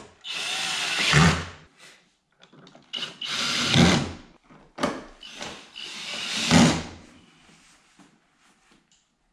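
Cordless drill/driver driving screws into the skid armor under a car's front bumper, in three runs of about a second each. Each run grows louder and stops sharply as the screw seats, with a couple of short blips in between.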